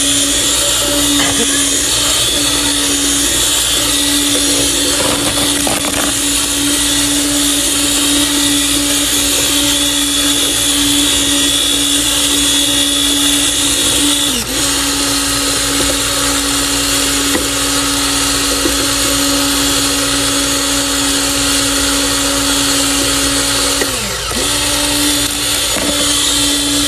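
Electric coffee grinder motor running continuously, a steady hum with a hiss as it grinds food into a paste. The motor's pitch dips briefly twice, about halfway through and again near the end, before it picks back up.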